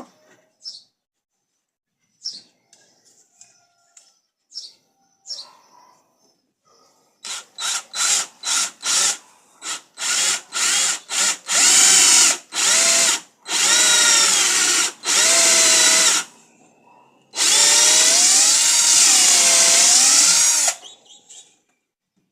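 Electric drill triggered in several quick short bursts, then run in longer stretches of a few seconds each, its motor pitch wavering as the load changes. Faint scattered clicks and knocks come before it.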